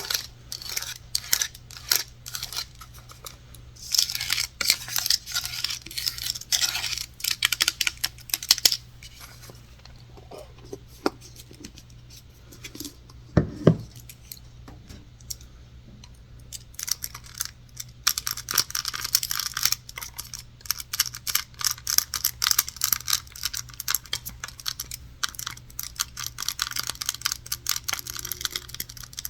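ASMR tapping and scratching on props close to the microphone: fast, dense clicks and scratches, thinning out to a few soft knocks in the middle with one louder thud about 13 seconds in, then fast scratching again from about 17 seconds in.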